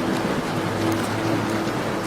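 Steady rain hiss with a few faint fireplace crackles, over a low steady hum.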